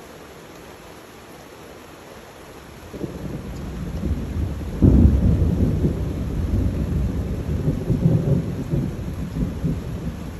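A deep rolling rumble over a steady hiss, building from about three seconds in, peaking suddenly near five seconds, then rumbling on unevenly.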